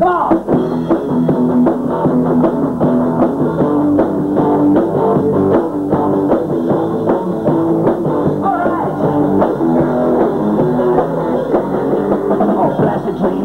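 Rock band playing live: electric guitars over drums with a steady beat, kicking in suddenly right at the start.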